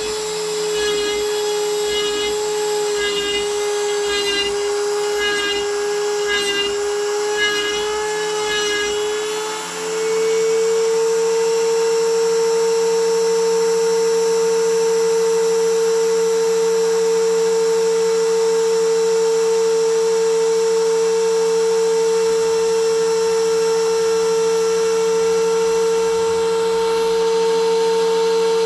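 Homemade CNC milling machine's spindle motor running with a high, steady whine while milling a plate. For the first ten seconds the sound pulses rhythmically at a slightly lower pitch; about ten seconds in the pitch rises a little and the whine runs on steady.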